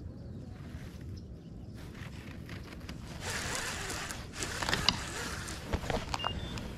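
Baitcasting fishing reel handled and worked, with a few sharp clicks a little past halfway, over a steady low rumble.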